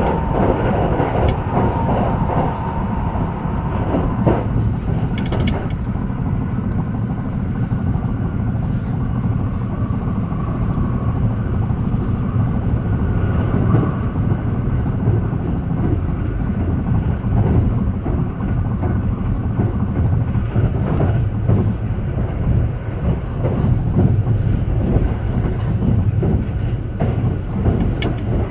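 Haruka airport express train running at speed, heard inside the passenger car: a steady low rumble from the running gear on the track, with faint clicks throughout.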